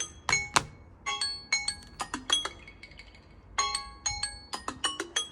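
Samsung Galaxy timer or alarm tone ringing: repeated runs of short, bright marimba-like notes with brief pauses between the runs.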